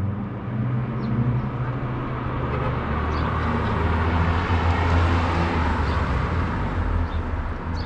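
Motor vehicle passing along the street: a steady low engine hum with tyre and engine noise that swells to a peak around the middle and then eases off. A few faint high chirps sound over it.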